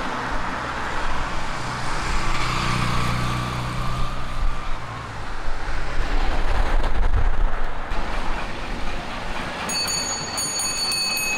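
Road traffic passing on a street: a modern car drives by with a steady engine hum, then a louder low rumble a few seconds later. Near the end comes a run of short, high-pitched electronic beeps.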